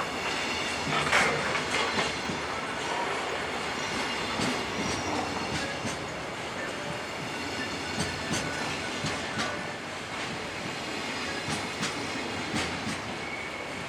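Freight train running past, its wheels clacking irregularly over the rails under a steady rumble, with a faint high wheel squeal.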